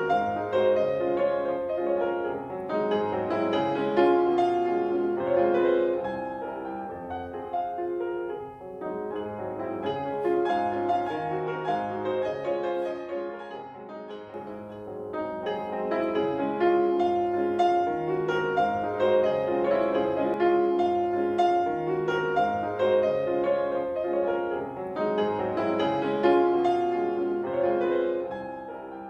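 Solo piano playing a gentle piece, fading out near the end.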